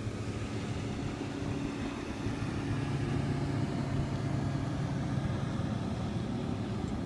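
Motorboat engine running steadily, a low hum that grows a little louder about two and a half seconds in.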